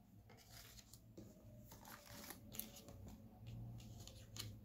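Tarot cards being laid down and turned over on a table: faint, scattered soft clicks and slides of card on card, over a quiet low room hum.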